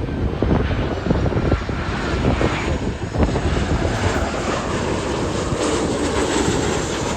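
A jet airliner's engines as it passes, a loud, steady rush of noise.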